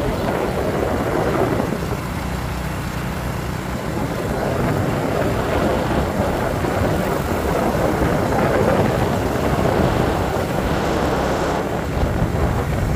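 Motorcycle cruising at a steady speed: engine running under a steady rush of wind and road noise.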